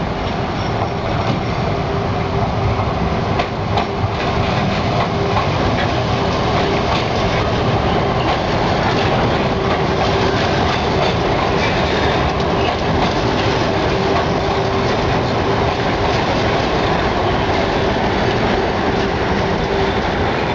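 A Siemens-Duwag U2 light-rail trolley train passing close by on street track: a steady rumble of wheels on rail with scattered clicks, and a steady whine that fades out near the end.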